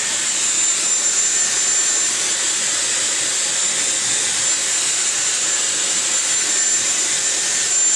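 Dyson hot-air brush dryer running steadily close by as it rough-dries hair: a constant rush of air with a thin, high whine.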